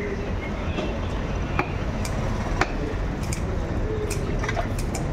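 A large knife cutting a seabass on a wooden chopping block, the blade knocking sharply on the block a few times; the two loudest knocks come about a second apart. Steady background noise runs underneath.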